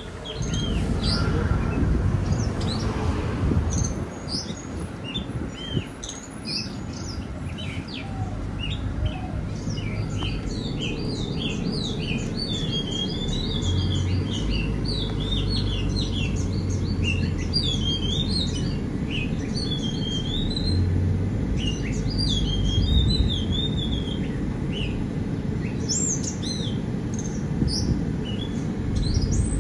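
Many small birds chirping and twittering in quick, overlapping calls, busiest from about ten seconds in, over a steady low rumble.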